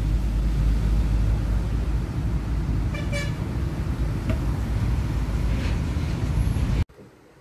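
Steady low background rumble with a short, high toot about three seconds in. It cuts off abruptly near the end into a much quieter background.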